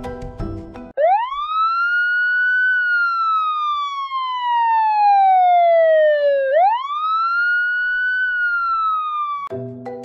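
A siren wailing in two long slow cycles, each sweeping quickly up and then sliding slowly back down in pitch. Short snatches of jingly game music are heard just before it starts and again as it ends.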